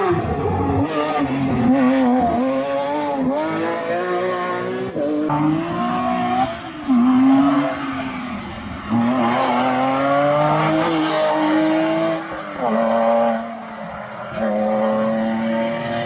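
Porsche rally car engines at full throttle, the revs climbing and dropping sharply through gear changes and lifts, over several passes heard one after another.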